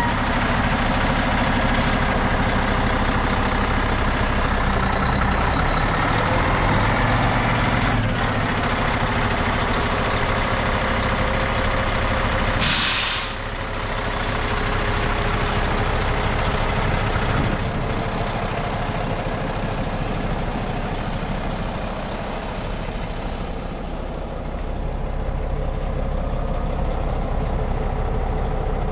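Diesel engine of a 2021 International LoneStar truck tractor idling steadily, with one short, loud hiss of released compressed air from the truck's air system about halfway through.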